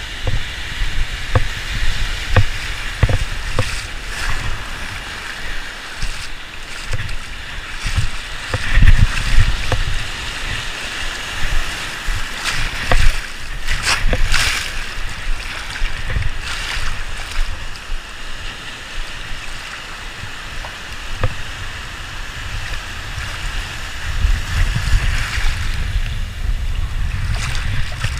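Shallow surf water washing and splashing, with wind rumbling on the microphone and a few small splashes.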